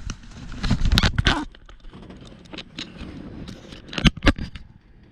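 Metal clicking and scraping as small steering-column parts and a hand tool are worked at a retaining clip, with a run of scrapes about a second in and two sharp clicks near the end.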